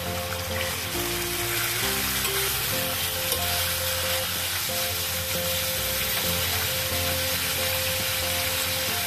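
Raw chicken pieces sizzling in hot oil in a stainless steel kadai, stirred now and then with a spatula. Soft background music plays underneath.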